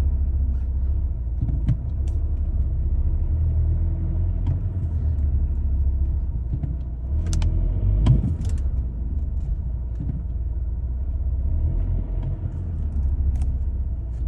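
Volkswagen Passat running, a steady low rumble heard inside the car, with a few short sharp knocks, the loudest about eight seconds in.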